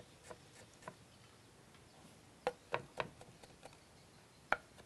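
Cleaver chopping ginger on a wooden cutting board: scattered sharp knocks of the blade on the wood, a quick run of four or five about two and a half seconds in, and a single loud knock near the end.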